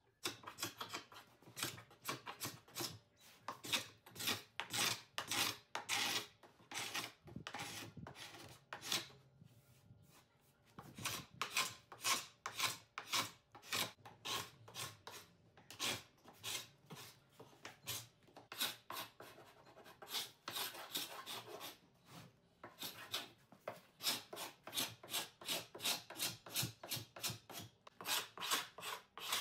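Carbide paint scraper dragged in repeated rasping strokes across a painted wooden hutch, peeling off layers of paint and varnish down to the wood. The strokes come at about one to two a second, with a couple of short pauses.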